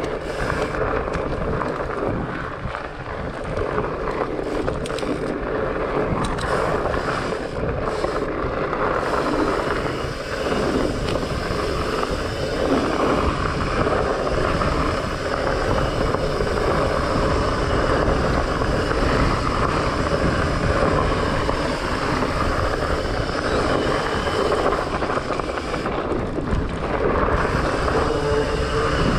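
Trek Farley 9.6 fat bike ridden along a dirt forest singletrack: its fat tyres rolling and rumbling steadily over the trail, with wind noise on the microphone.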